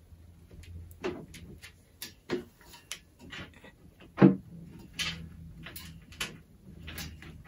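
A folding craft table knocking and clacking as it is handled and pressed down on: its drop leaf and metal frame give off a string of separate knocks, one sharp knock about four seconds in being the loudest.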